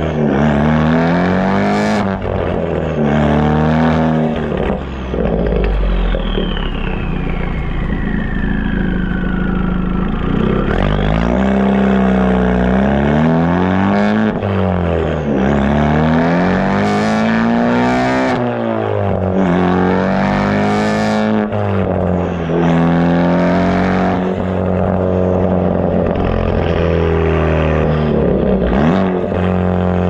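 Mk3 Ford Focus ST's turbocharged four-cylinder running through an AWE aftermarket exhaust while driving, its note climbing under acceleration and dropping at each shift or lift, again and again. About five seconds in, a high whistle glides steadily down in pitch.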